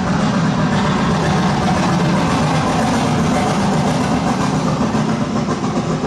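Stage sound effect of a steam train rushing through a tunnel, played loud over the theatre's speakers as a steady, heavy rumble.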